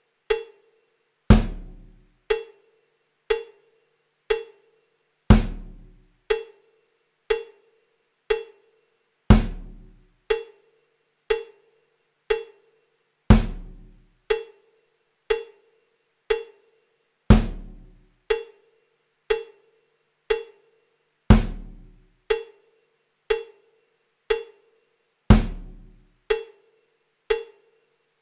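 Looped holding-screen music of sparse percussion: a short, pitched tick once a second, with a heavier hit carrying a deep bass thud on every fourth beat.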